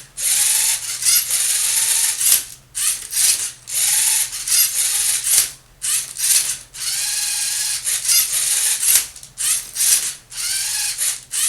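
LEGO Mindstorms NXT Rubik's Cube solver at work: its geared motors whir in repeated spurts as the turntable twists the cube and the arm flips it, each spurt lasting from a fraction of a second to about a second and a half, with short pauses between.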